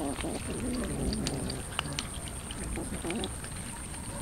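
A crowd of cats eating raw chicken, with many small wet chewing and tearing clicks. Drawn-out, wavering cries come through in the first second and a half and again around three seconds in.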